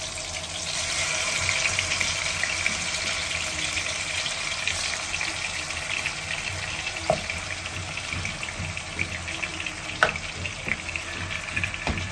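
Marinated chicken pieces sizzling as they fry in hot oil in a non-stick pan; the sizzle grows louder about a second in as more pieces go into the oil. A few sharp taps stand out about seven and ten seconds in.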